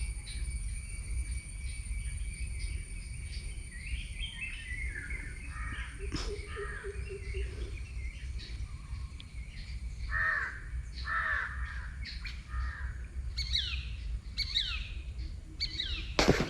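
Birds calling outdoors over a steady low rumble: harsh repeated calls starting about four seconds in, then several quick falling calls near the end. A sharp knock comes at the very end.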